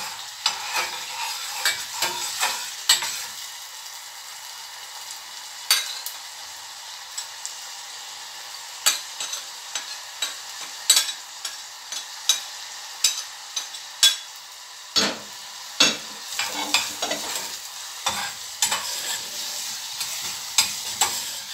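Onions, chopped red pepper and spices sizzling in hot oil in a small stainless steel saucepan, with a metal spoon scraping and clinking against the pot as they are stirred. The clinks come irregularly, a few a second, over the steady sizzle.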